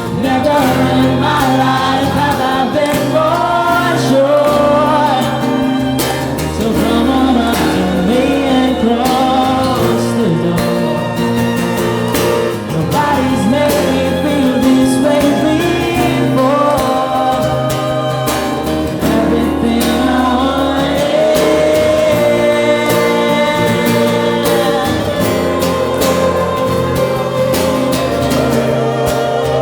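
Live pop ballad: a singer's voice carries the melody over acoustic guitar and backing instruments.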